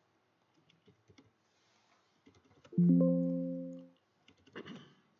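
Windows system alert chime: a single short chord of several tones that fades out over about a second. It signals an error, sounding as MATLAB rejects a typed command with 'Invalid use of operator.' Faint mouse and keyboard clicks come before it, and a short noise follows near the end.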